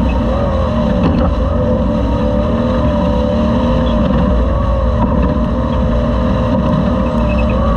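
Toyota Class 2000 off-road race truck's engine running hard under load, its pitch wavering slightly up and down, over a heavy low rumble, heard from a camera mounted on board.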